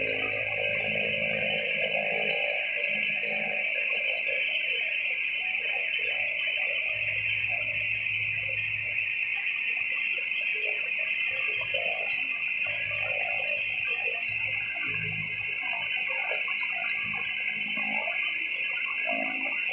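Cessna 208B Grand Caravan's PT6A turboprop engine running while the aircraft stands parked: a steady high turbine whine over a rushing hiss.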